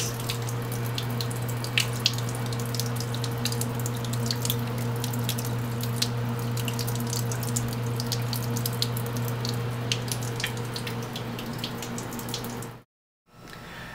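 Cold tap water running steadily into a lab sink, splashing over a hand and a cryovial held in the stream to thaw frozen cells, with a low steady hum beneath. The sound cuts off suddenly near the end.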